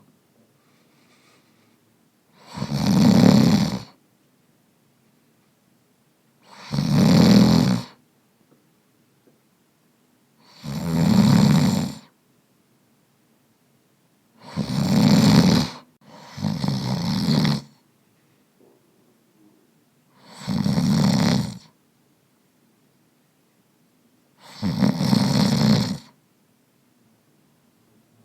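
Snoring: seven loud snores, about one every four seconds, one of them a double snore midway, with near silence between.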